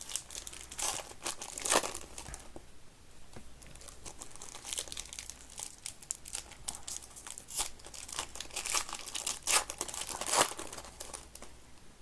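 Trading-card packs from blaster boxes being torn open and their wrappers crinkled while the cards are handled: irregular sharp crackles and rustles.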